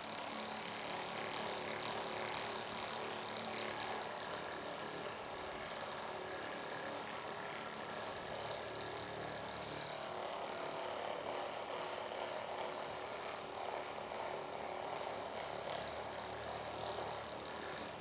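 A small electric motor running steadily, a constant whirring noise with a faint hum, which fades away right at the end.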